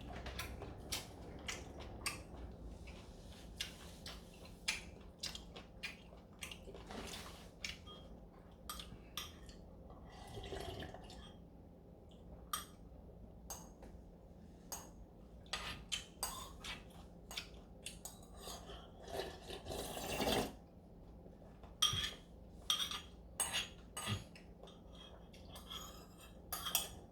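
Spoons and chopsticks clinking and tapping against bowls at irregular intervals during a meal of galbitang, with a few brief liquid sounds from the soup.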